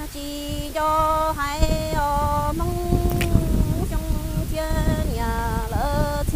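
A woman sings Hmong kwv txhiaj poetry unaccompanied. Her voice holds long notes that step between pitches, with a brief upward slide near the end.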